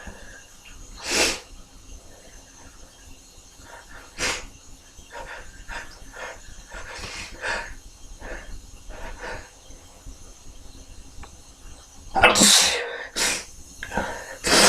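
A man sneezing again and again, the sneezes set off by a thin plastic cable sheath tickling inside his nose. There are single sneezes early on and midway, then a quick run of three loud sneezes near the end, the first of them the loudest.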